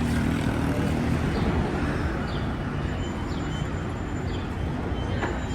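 Steam excursion train running on the rails: a steady low rumble with faint short high squeaks about once a second.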